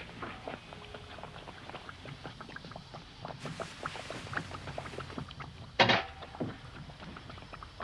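Kitchen clatter: irregular small clicks and knocks of dishes and utensils, with one loud clash a little before six seconds in.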